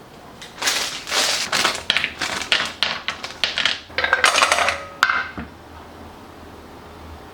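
Kitchen food-preparation noises: a quick, irregular run of clattering and scraping strokes for about four seconds, ending in a sharp click.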